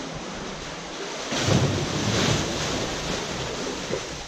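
Sea water surging into a narrow rock trench on the shore, pushed in by the high tide. The rushing water swells suddenly about a second in, then slowly dies away.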